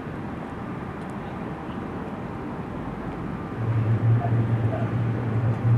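Airliner engine noise at an airport: a steady rushing, joined a little past halfway by a loud, wavering low hum.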